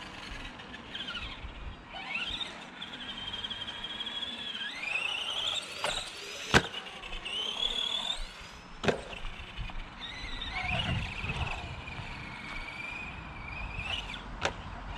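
Arrma Granite 4x4 Mega RC truck's brushed electric motor and drivetrain whining, rising and falling in pitch as it speeds up and slows down. Sharp knocks about six and a half and nine seconds in, with a smaller one near the end, from the truck hitting the concrete.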